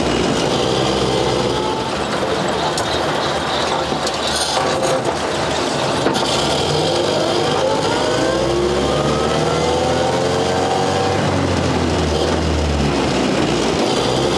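1929 Ford Model AA truck's four-cylinder side-valve engine running on the move, heard inside the cab. Its pitch climbs in long rising glides through the second half as the truck picks up speed.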